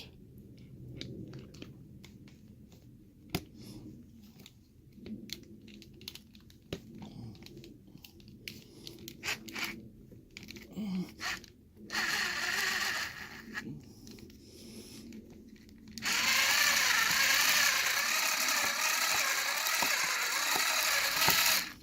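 Light clicks and handling of the padlock, then a small power tool runs: a brief burst, and after a pause a steady run of about five seconds, its pitch wavering under load as it cuts into an ABUS 83/55 padlock to gut it.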